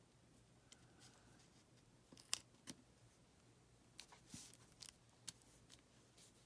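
Faint handling sounds of paper and craft tools: a few short, sharp clicks and a brief rustle as a glued vellum cut-out is set in place, most of them in the second half.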